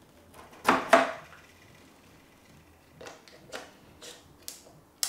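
Battery being pushed into a Phase One IQ3 digital back: two loud clicks close together about a second in as it seats, then several lighter clicks and handling knocks.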